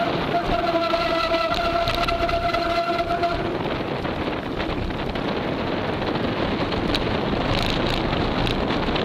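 Wind buffeting an action camera's microphone, over the steady rushing and rattle of a mountain bike rolling fast on a dirt track. A steady whine with overtones runs through the first three seconds or so, then stops.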